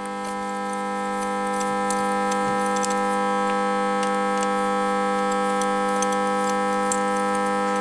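Background music: a steady, held electronic chord with no rhythm, swelling in over the first couple of seconds and then holding level, with a few faint clicks.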